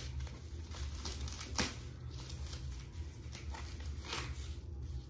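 Thin protective wrapping crinkling and rustling as it is handled and pulled off a handbag strap, with a couple of sharper crackles, the loudest about a second and a half in.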